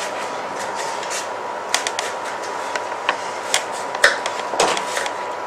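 Kitchen knife cutting an apple into chunks on a plastic cutting board: irregular light taps of the blade on the board, a few a second from about a second and a half in, over a steady background hiss.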